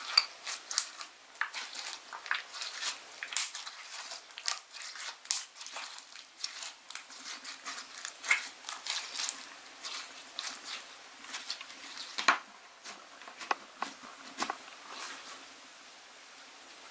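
Slime being squeezed and worked by hand: a dense run of irregular sticky clicks and pops that thins out near the end.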